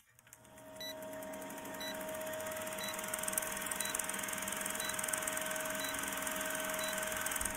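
Film-leader countdown sound effect: an old film projector's steady whirring rattle with hiss and a steady hum, and a short high beep once a second, seven times. It cuts off suddenly at the end.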